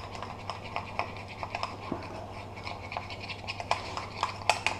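Melted butter and flour being stirred together in a small cup with a utensil: a run of small irregular clicks and scrapes against the cup, several a second, a little louder near the end.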